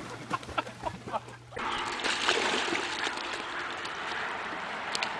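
Water splashing and sloshing as a dog swims close to the shore. It starts about a second and a half in as a steady rush.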